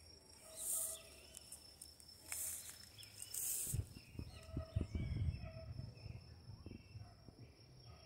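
Evening outdoor insect chorus: a steady high cricket trill with a few short hissing insect buzzes in the first half and small bird chirps. From about four seconds in, low thumps and rustling come in, as if from moving through the brush.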